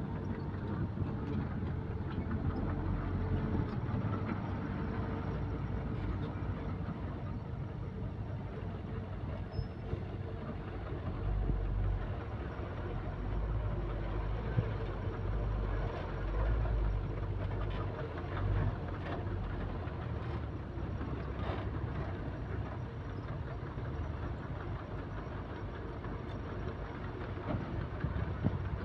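Heavy diesel earthmoving machinery running steadily, a low engine rumble with a few brief knocks.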